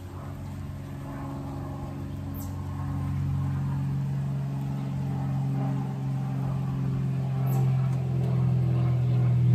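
A steady low engine hum that grows gradually louder, with a couple of faint light ticks.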